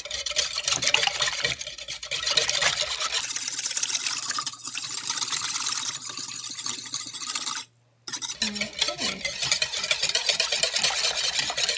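Wire whisk beating a thin liquid sauce mix in a mixing bowl: fast, continuous clicking of the wires against the bowl with the liquid sloshing, breaking off for a moment about two-thirds through.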